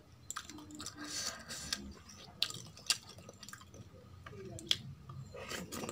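Wet squelching of rice and kadhi (yogurt curry) being squeezed and mixed by hand on a steel plate, with sharp wet smacks and clicks now and then as a handful is eaten.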